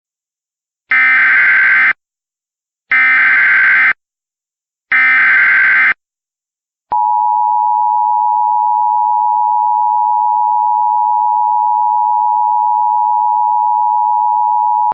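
Emergency Alert System SAME header: three one-second bursts of warbling digital data tones, two seconds apart. They are followed by a steady, loud EAS attention tone held for about eight seconds. This signal opens a flash flood warning.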